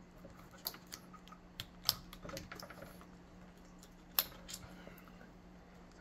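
Small sharp clicks and taps from a DDR4 laptop memory stick being pressed down into its slot, with the two loudest clicks about two seconds in and about four seconds in as the slot's retention clips catch.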